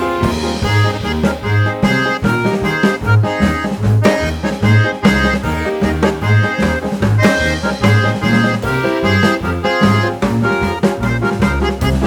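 Background music with a steady beat: instrumental music with bass, drums and keyboard-like notes.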